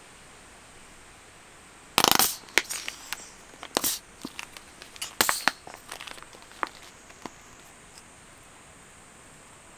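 A wooden butter knife scraping jam across crisp toasted bread: irregular crackly scrapes, the loudest about two seconds in, thinning out after the middle.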